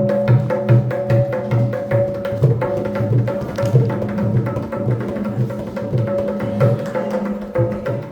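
Music with a steady held drone and a regular low drum beat, with lighter percussion strokes between the beats.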